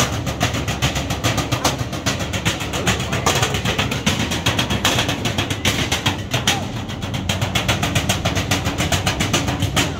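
Street percussion on metal trash cans and buckets: drummers beating a rapid, steady rhythm of sharp strikes.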